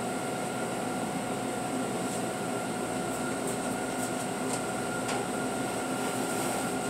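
Commercial bakery rack oven and exhaust hood fans running: a steady machine drone with several steady tones, and a few faint clicks.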